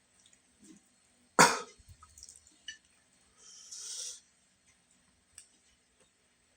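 A person coughs once, sharply, about a second and a half in, followed a couple of seconds later by a softer breathy exhale.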